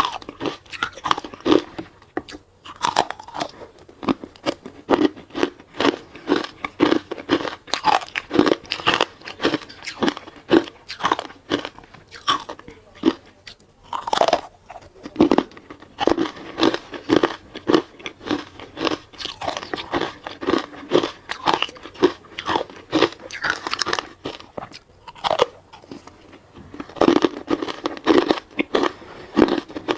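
Close-up biting and chewing of hard ice: a fast, continuous run of crisp crunches, with a few brief pauses between bites.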